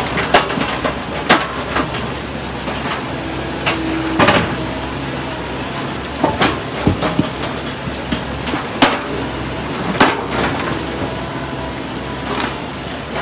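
Stones from a ditch being lifted and dropped onto a vehicle, giving irregular sharp knocks and clanks, about a dozen of them, over a steady low engine hum.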